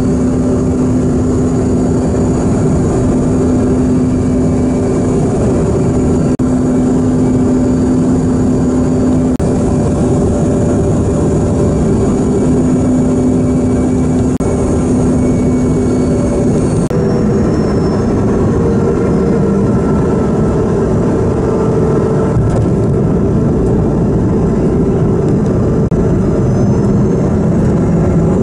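Steady engine and air rush inside a passenger airliner's cabin, with a few droning hums that shift in pitch a little past halfway.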